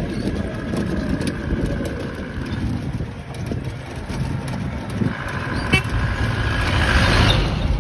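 Steady rumble of wind and road noise while riding a rickshaw. A horn sounds as a long held tone for the first two to three seconds and again from about five seconds in. Near the end a small truck passes close by with a loud rushing swell.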